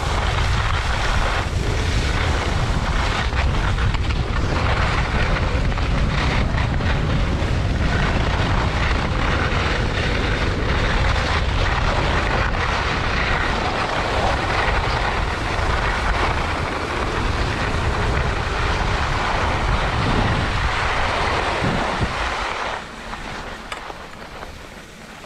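Wind buffeting an action camera's microphone as a skier heads downhill, a loud, steady rumble with skis scraping over packed snow. It eases off sharply near the end as the skier slows down.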